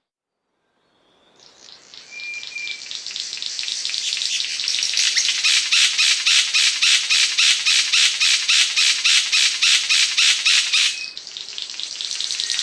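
Asian paradise flycatcher giving a harsh, rasping chatter, starting after a moment of silence and building into a fast, even run of about five notes a second, with one short whistled note early on.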